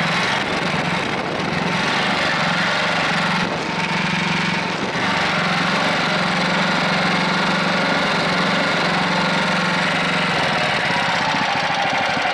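Lifan 20 hp small petrol engine running steadily at idle, somewhat unevenly, with a faint misfire that the owner puts down to the spark plug. The level dips briefly twice in the first five seconds.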